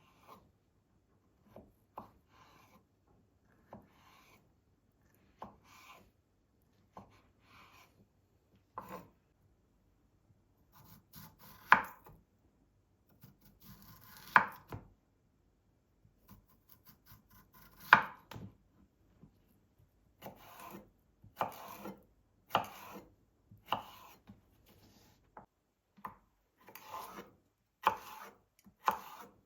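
Knife chopping on a cutting board in a series of separate strokes, faint and spaced out at first, then louder and quicker, about one to two a second, in the second half.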